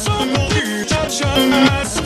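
Meme music remix with a repeating bass-drum beat under pitched melodic lines.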